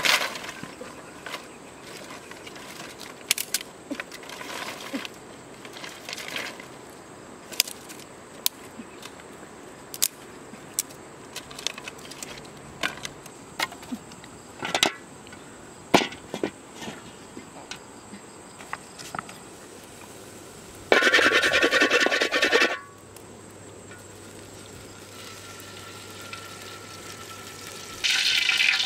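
Dry sticks and brushwood snapping and clattering while a wood fire is built and crackles, in many short sharp snaps. About 21 seconds in comes a loud burst of noise lasting about two seconds. Near the end, food starts sizzling in a hot iron wok.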